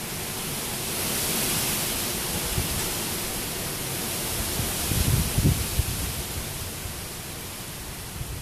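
Steady rain falling on a street and lawns, a constant hiss, with a gust of wind buffeting the microphone in low rumbles about five seconds in.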